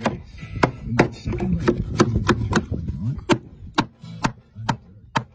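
Claw hammer tapping small nails through a thin wooden patch into a wooden post: a run of sharp, evenly spaced knocks, about three a second at first and slowing to about two a second.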